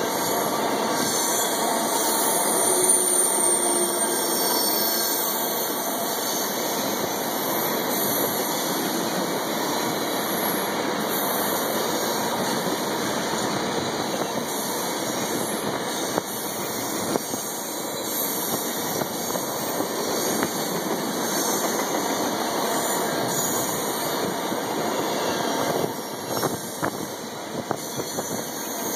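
Ethanol tank cars of a freight train rolling past on the rails: a steady rumble and clatter of steel wheels on track, with a few sharp clicks near the end.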